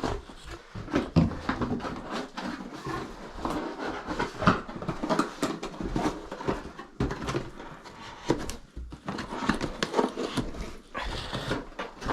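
Irregular clicks, knocks and rustling of hand work close to the microphone, with louder knocks now and then.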